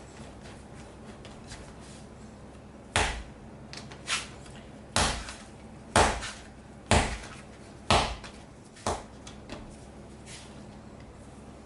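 Bread dough being slapped down onto the kneading board, a run of about seven thuds roughly one a second starting a few seconds in.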